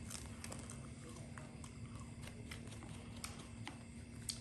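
Faint, irregular light clicks and crunches of a small knife cutting into a piece of green fruit held in the hand, over a low steady hum.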